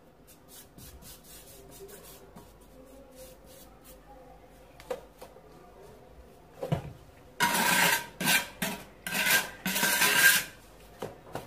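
A run of rough rubbing strokes across terracotta floor tiles and fresh mortar, about five in three seconds, starting about two thirds of the way in. Before them, only faint light scrapes and a couple of taps.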